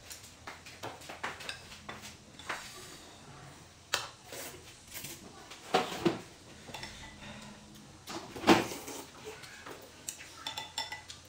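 Chopsticks clicking and scraping against ceramic bowls and plates while eating noodles, with scattered light clinks and a few louder knocks of tableware.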